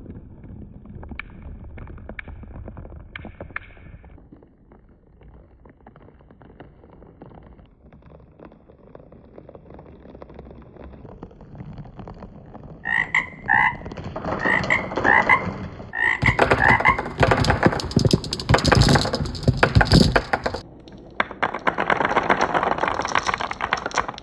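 Marbles rolling and clicking along a homemade marble run, faint at first and much louder from a little past halfway, with dense clattering runs near the end. Short croaking calls, often in pairs, sound several times in the middle.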